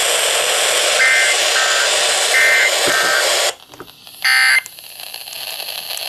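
Midland NOAA weather radio hissing with static while short warbling data bursts of the emergency alert end-of-message code play, about a second and two and a half seconds in. These signal the end of the warning broadcast. The static then cuts off suddenly as the radio mutes, and a moment later it gives one short, loud beep.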